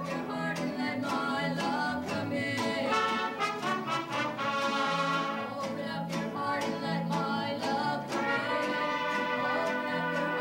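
Mariachi band playing a song with trumpets, violin and strummed guitars over a steady bass line, with women singing.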